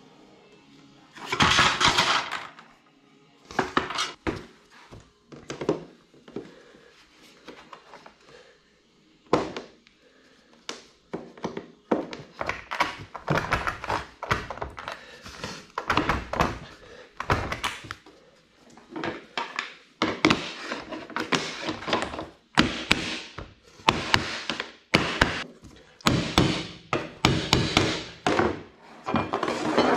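Vinyl click-together flooring planks being knocked into place with a mallet and tapping block: a run of short thunks and taps, sparse at first and coming in quick clusters through the second half.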